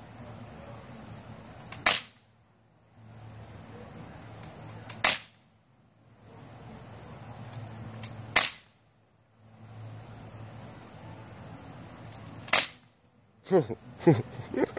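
A BB pistol firing four single shots a few seconds apart, each a short sharp snap.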